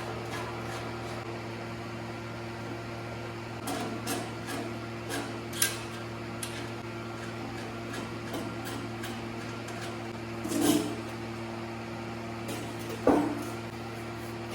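A steady mechanical hum, as of a motor or fan running, with a few scattered knocks and clinks of metal parts being handled; the loudest knocks come about ten and thirteen seconds in.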